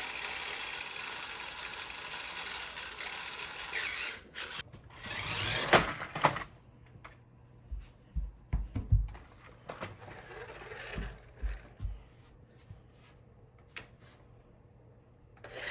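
Remote control monster truck's electric motor whirring steadily for about four seconds, then a short louder burst of motor with sharp clicks, followed by scattered knocks and clattering as the toy truck bumps over other toys.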